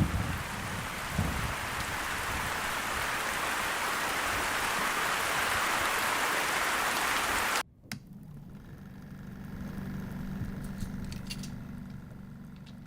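Heavy rain hissing steadily and swelling for about eight seconds, then cut off abruptly. After the cut, a quieter low steady hum with a few faint ticks.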